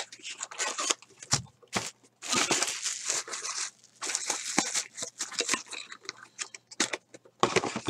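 Cellophane wrapping on a 2013 Select trading-card pack crinkling and tearing as it is stripped off, mixed with clicks and taps from handling the small cardboard pack box. The longest run of crinkling starts about two seconds in, and a shorter one follows near the middle.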